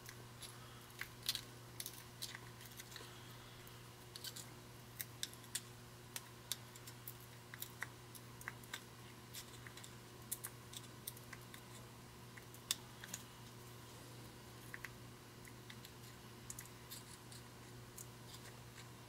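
Faint, irregular metallic clicks and scrapes of a small flathead screwdriver prying at and spreading the crimped steel bezel of a 1964 Ford 4000 tractor fuel gauge, over a faint steady hum.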